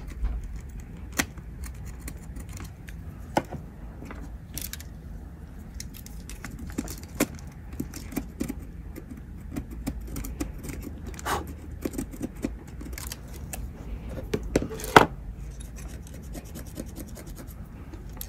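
Irregular small clicks, taps and scrapes of pliers, a soldering iron and wires being handled on a calculator's circuit board, over a low steady hum.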